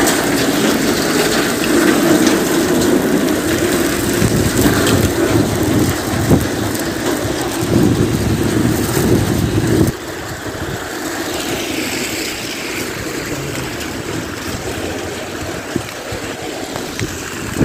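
Heavy rain and storm water running along a street gutter, mixed with a vehicle's engine noise. The louder, lower part stops abruptly about ten seconds in, leaving a quieter steady hiss of rain.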